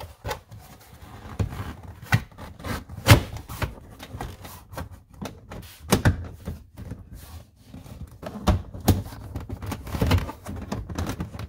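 A plastic interior trim panel in a Saab being pushed and snapped into place over its metal bracket: a string of irregular plastic clicks and knocks with some rubbing, the sharpest about three and six seconds in.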